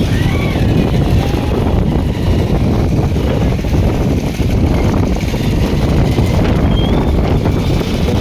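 Wind buffeting the phone's microphone: a loud, steady, low rumble that rises and falls slightly.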